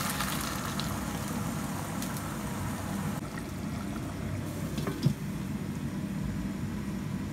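Water pouring into a pot of chicken and rice, tailing off in the first second, then the pot simmering over a steady low hum. About five seconds in there is a single sharp clink as a glass lid is set on the pot.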